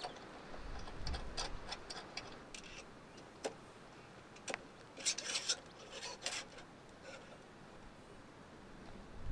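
Irregular small clicks, taps and light knocks of camping gear being handled, with a cluster of clicks about five seconds in.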